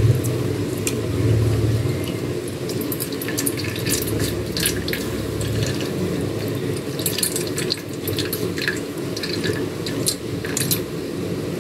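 Fresh coconut milk dripping and trickling through a metal mesh strainer into a pot as wet grated coconut is squeezed by hand, in small irregular drips and splashes over a steady low hum.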